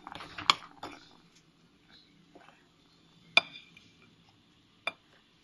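Metal whisk scraping and clinking against a mixing bowl while stirring brownie batter, busiest in the first second, then two separate sharp clinks about three and a half and five seconds in, the first ringing briefly.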